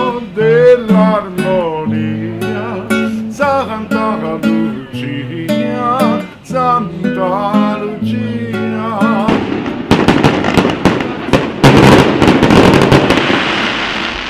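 Acoustic guitar music with a wavering melody line. About nine seconds in, a dense crackle of firecrackers takes over, many sharp bangs close together, lasting until just before the end.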